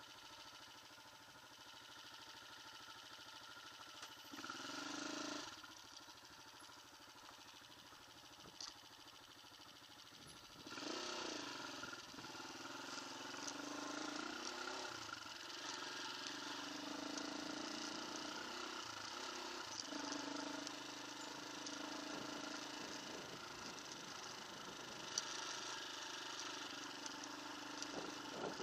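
Off-road motorcycle engine, faint at first with a brief louder spell about four seconds in, then running steadily from about eleven seconds on with revs rising and falling.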